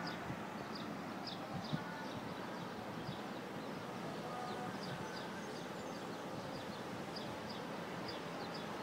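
Steady outdoor background noise from a high balcony over a city beach, with small birds chirping in short, high notes several times a second throughout.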